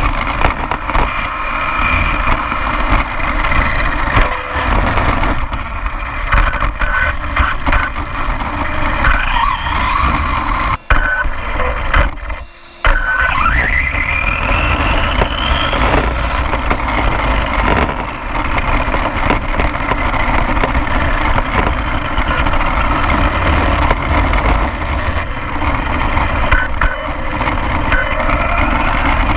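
Electric RC car running, heard from a camera mounted on it: the motor's whine rises and falls in pitch as it speeds up and slows, over a steady rumble of tyres on asphalt and wind on the microphone. The sound drops out briefly twice near the middle.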